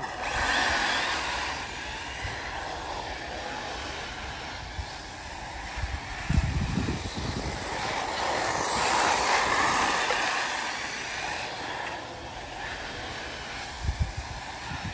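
Arrma Typhon 6S electric RC buggies running on a dirt track: a steady whir of brushless motors and drivetrains with tyres on dirt. There are low thumps about six seconds in and again near the end.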